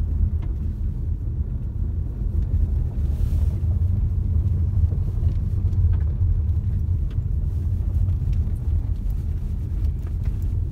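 Steady low rumble of a car heard from inside the cabin while driving: engine and tyre road noise, with a few faint ticks.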